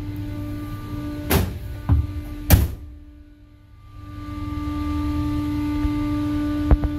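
Steady hum and low rumble of ship engine-room machinery, with three loud thunks in quick succession about a second in. The sound then drops away for about a second and swells back up, with a short knock near the end.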